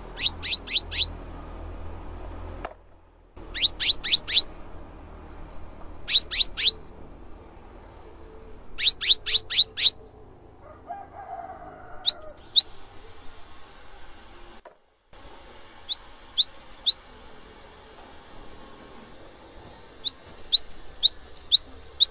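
Cinereous tit singing loudly: repeated bursts of four to eight quick, high, down-slurred notes every two or three seconds, the phrases turning higher and sharper about halfway through.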